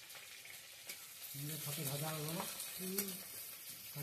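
Sliced onions sizzling in hot oil in a metal karahi as a steel spatula stirs and scrapes the pan. The sizzle grows louder about a second in, and a low drawn-out call sounds over it in the middle, with a shorter one a second later.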